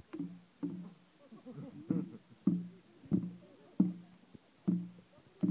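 Small red taiko drum struck with wooden sticks by a performing monkey. There are about eight single beats at an uneven, unsteady pace, each a short booming thud that rings briefly.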